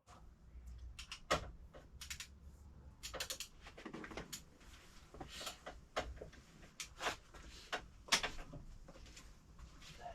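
Irregular clinks and knocks of hand tools and metal parts being handled during engine work, a dozen or more sharp taps spread unevenly.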